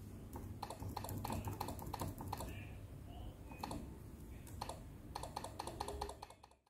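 Keys being typed on an ASUS TUF Gaming F15 laptop keyboard: quick runs of light key clicks in three bursts, with short pauses between them.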